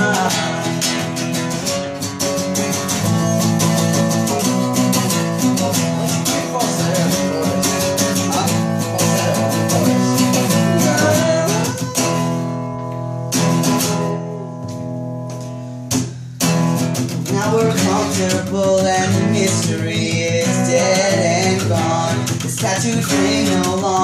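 Acoustic guitar strumming chords under a male voice singing a pop-punk song. About halfway through, the strumming stops for a few seconds and the notes ring out, then the strumming comes back.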